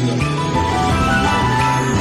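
Background music: a melodic tune with notes changing every fraction of a second.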